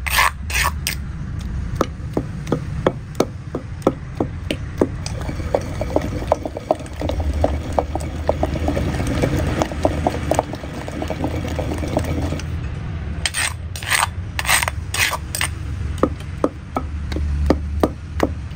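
Wooden pestle pounding and grinding wet gongura chutney in a stone mortar: a rapid run of short, wet knocks, with a few harder strikes about two-thirds of the way through. A low steady rumble sits underneath.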